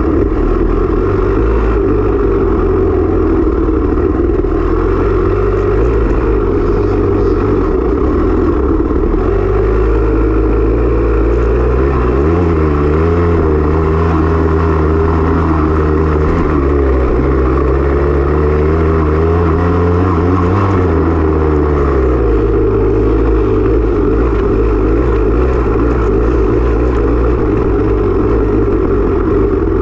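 Off-road dirt bike engine running hard under racing load, loud and continuous. Its pitch rises and falls with the throttle from about ten to twenty-two seconds in.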